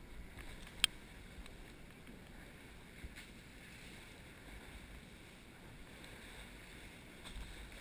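Steady wash of shallow stream water and wind on the microphone, with one sharp click about a second in.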